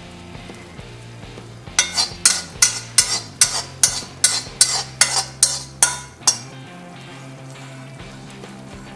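Metal spoon scraping and tapping tadka out of a steel kadhai in a quick run of about a dozen strokes, roughly three a second, which stops after about four seconds.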